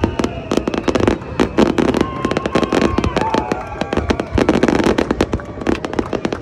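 Fireworks and firecrackers going off in a dense, continuous crackle of rapid bangs, many a second.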